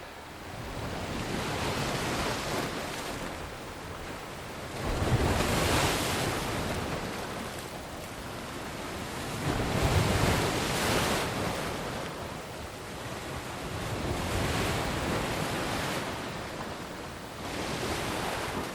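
Ocean surf: waves washing in and breaking in slow surges every few seconds, with a steady hiss between them.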